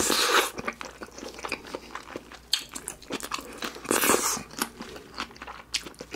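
Close-miked chewing of a mouthful of bacon burger: moist mouth clicks and crunching, a little louder at the start and again about four seconds in.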